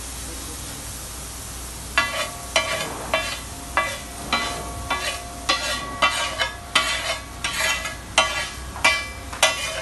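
Metal spatula scraping and striking a large flat griddle while tossing rice, about two sharp ringing strokes a second starting about two seconds in, over the steady sizzle of the rice frying.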